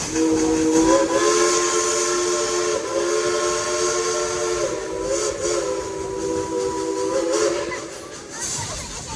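Chime whistle of steam locomotive engine 192 blowing one long blast of about seven and a half seconds. It is a chord of several tones that dips briefly twice before cutting off, over a faint steam hiss.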